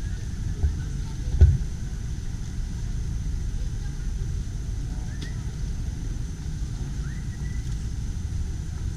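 Steady low rumble on a handheld action camera's microphone, with a sharp knock about a second and a half in. A few faint short chirps come later.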